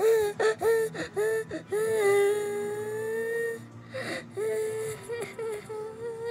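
A high voice vocalizing without words. It makes short notes that scoop upward and settle, about three a second, then holds one long note for about a second and a half that rises slightly, then goes back to short notes.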